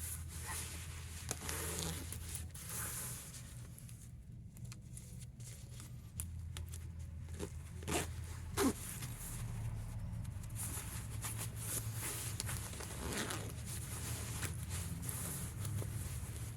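A fabric zipper being run open and shut in several short zipping strokes, with two sharp clicks about eight seconds in.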